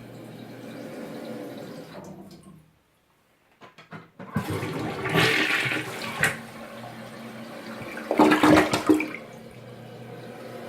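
Foremost dual-flush toilet flushing: a few sharp clicks about four seconds in, then a loud rush of water through the bowl, a second loud surge about eight seconds in, and a steady run of water as the tank refills.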